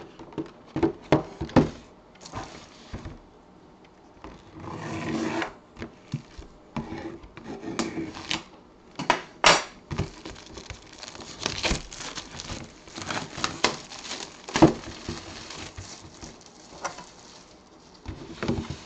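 A sealed cardboard mini-helmet box being handled and opened: rubbing, scraping and tearing at the seal and packaging, with scattered clicks and knocks.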